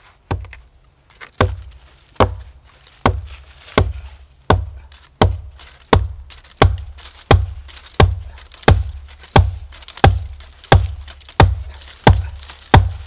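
Heavy wooden knocks, one log or pole pounding against another while a log wall is built, struck in a steady rhythm of about three blows every two seconds, each a sharp crack over a low thud.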